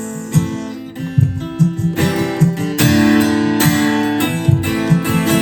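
Acoustic guitar strummed in a steady rhythm, an instrumental break between choruses of a country song.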